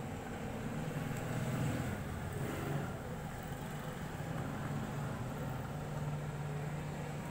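Steady low rumble of a running engine or motor, with a pitched hum that grows a little stronger near the end.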